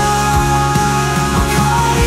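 Instrumental passage of a worship song played by a rock-style band: held chords over a steady drum beat, with no singing.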